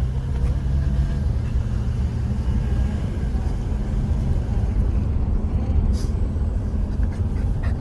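Steady low rumble of a running vehicle, with a low hum that fades out about halfway through.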